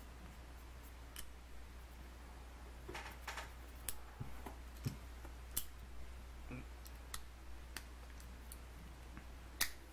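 Scattered light metallic clicks and taps as a brass-bolstered lever-action automatic folding knife is handled and closed, more frequent in the second half, with the sharpest click near the end. A low steady hum runs underneath.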